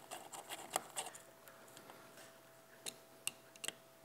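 Faint clicks and small scrapes of a hand driver snugging up the screws of a transducer mounting bracket, a cluster in the first second and a few single clicks near the end.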